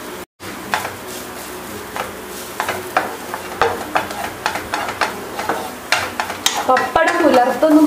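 Wooden spatula stirring and scraping a grated-coconut mixture in a nonstick frying pan, strokes coming about twice a second over a steady sizzle as the mixture's water cooks off.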